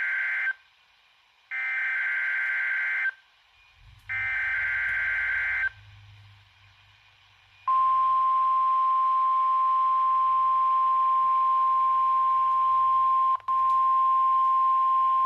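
NOAA weather radio receiver sending an alert: screeching digital SAME data bursts, one ending and two more of about a second and a half each with short gaps between. Then, about 8 seconds in, the steady single-pitch warning alarm tone starts and holds, with one brief dropout.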